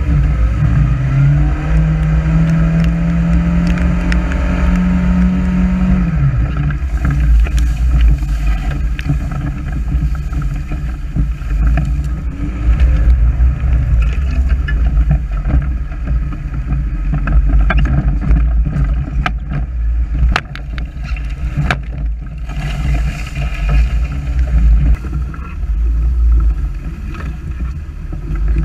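Gaiola off-road buggy's engine driving under load through rough ground. The engine pitch rises about a second in, holds steady, then drops away about six seconds in. After that it runs at uneven throttle, with scattered knocks and rattles throughout.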